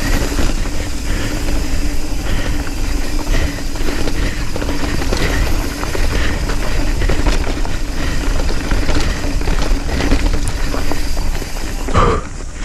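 Nukeproof Scout 275 hardtail mountain bike riding fast downhill on a dirt trail: wind rushing over the microphone with tyre noise, and the bike knocking and rattling over bumps.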